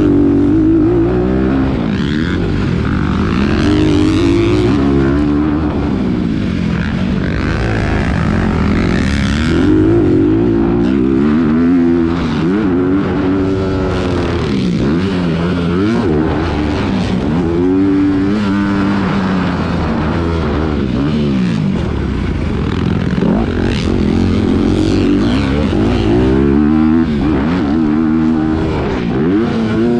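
Motocross bike engine heard from on board, revving up hard and falling off again every couple of seconds as the rider accelerates, shifts and rolls off over the track's jumps and turns, with a steady rushing noise underneath.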